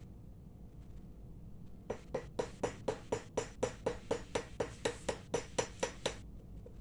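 A quick, even run of metallic taps, about five a second, each ringing briefly, starting about two seconds in and stopping near the end.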